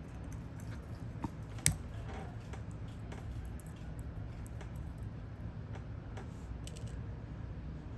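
Scattered small clicks and ticks of hand tools working on an Apple Watch's cracked round back glass, with one sharper click about a second and a half in, over a steady low hum.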